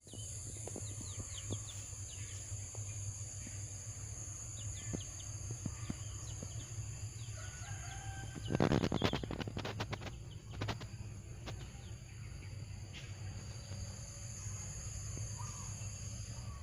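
Small birds chirping in short high peeps, with a loud burst of rustling or fluttering about eight and a half seconds in, over a steady low hum.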